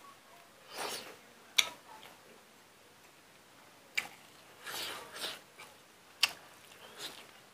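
Close-up eating sounds of a man chewing pork and rice eaten by hand. There are three sharp wet mouth smacks about two seconds apart, and two softer, longer chewing noises between them.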